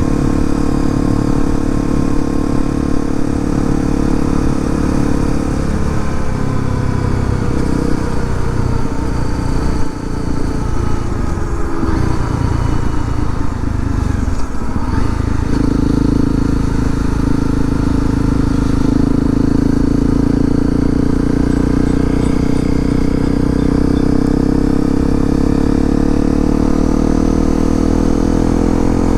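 2018 Honda CRF250L's single-cylinder four-stroke engine running while the bike is ridden. Its pitch shifts and dips between about six and fifteen seconds in, then holds steady and climbs a little near the end.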